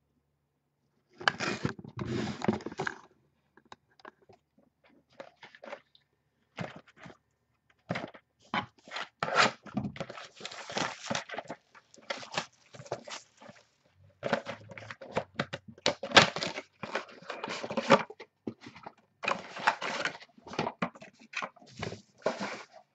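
Plastic wrap and cardboard of a sealed trading-card box crinkling and crackling as it is torn open and its packs are handled, in irregular bursts starting about a second in.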